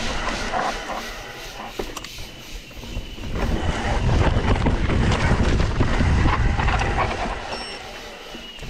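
Mountain bike ridden fast over a rough dirt singletrack: rattling clicks from the bike and trail under a low wind rumble on the camera microphone, which swells from a few seconds in and eases near the end.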